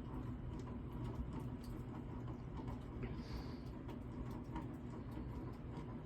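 Walmart Impressions hugger ceiling fan running on high speed: a steady motor hum with a faint grinding.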